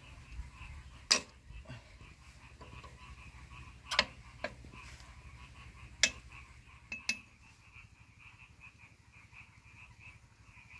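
Spanner and metal parts clinking against a hand tractor's exhaust pipe and muffler as they are fitted: sharp single clinks about a second in, around four and six seconds, and a quick pair near seven seconds. A steady pulsing animal chorus runs underneath.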